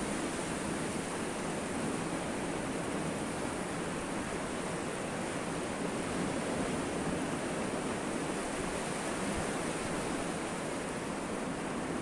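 Sea surf washing onto the beach: a steady, even rush with no single wave standing out.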